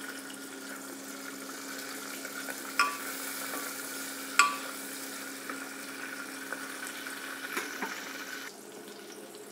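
Chopped onion, tomato and curry leaves sizzling in hot oil in an aluminium pressure cooker as a spatula stirs them, with two sharp clinks of the spatula on the pot, about three seconds in and again a second and a half later. The sizzle quietens a little near the end.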